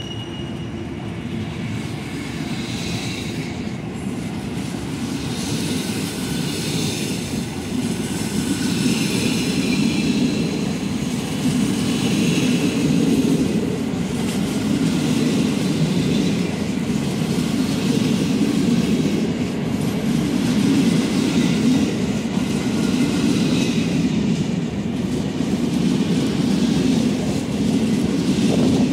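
PKP Intercity passenger carriages rolling slowly past as the train pulls out: a steady rumble of wheels on rail that grows louder, with faint high wheel squeals coming and going every few seconds.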